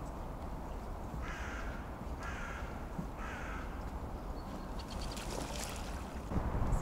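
A crow cawing twice, two harsh calls about a second apart, over a quiet outdoor background, with a few faint clicks near the end.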